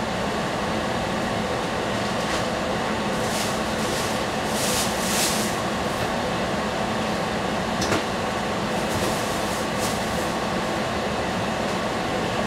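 Steady rushing kitchen noise while a lidded saucepan of vegetables cooks on the gas stove, with a few brief soft hisses a few seconds in.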